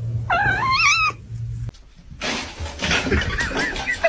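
A cat meows once, a drawn-out call that rises and then falls. After a break comes a stretch of noise with a fainter wavering cry.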